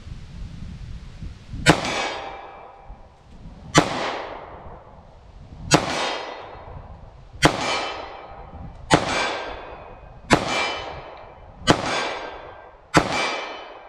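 Taurus G2C .40-caliber compact pistol fired eight times in slow aimed fire. The shots come about two seconds apart at first, then closer to one and a half seconds, and each crack trails off in a long echo.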